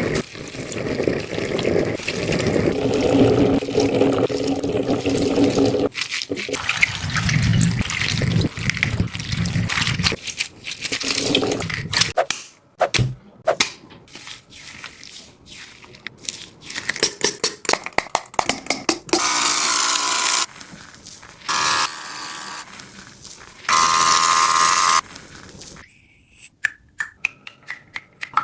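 Squishy toys being squeezed and crunched in a string of short clips: dense crackling, crunching and squelching noises that change abruptly every few seconds, with two brief pitched squeals about two thirds through.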